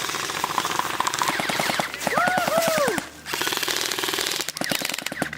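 Airsoft guns firing on full auto, a fast, even rattle of shots that breaks off briefly about three seconds in and then starts again. A short shout rises and falls over it about two seconds in.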